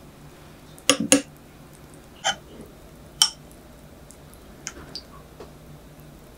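Metal spoon clinking against a glass tumbler while stirring and scooping jelly cubes in milk: two quick clinks about a second in, single clinks a little after two and three seconds in, then a few faint taps.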